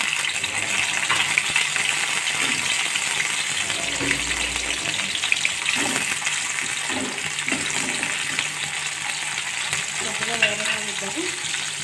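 Sliced onions sizzling in hot oil in a steel kadai: a steady crackling hiss. Partway through, the onions are stirred in the pan.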